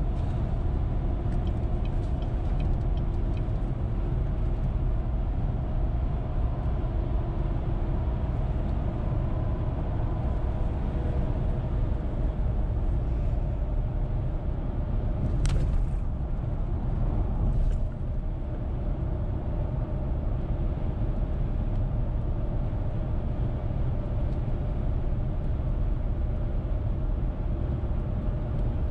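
Car cruising on the highway, heard from inside: a steady low rumble of tyres and engine with a faint hum. A sharp click comes about fifteen seconds in, and a fainter one about two seconds later.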